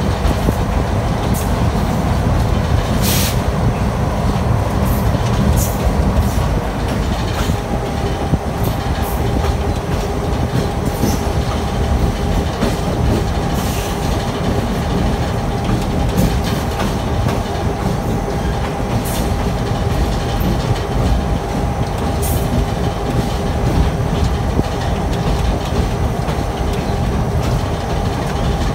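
Diesel locomotive rolling along jointed track: a steady, loud low rumble with a faint steady hum over it, and sharp clicks and knocks at irregular intervals from the wheels on the rails.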